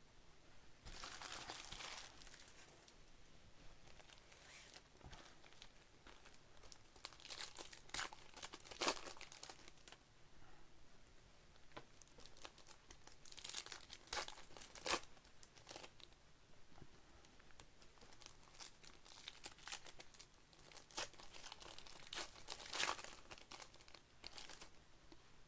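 Foil trading card pack wrappers being torn open and crinkled by hand, in irregular short bursts with quieter card handling between.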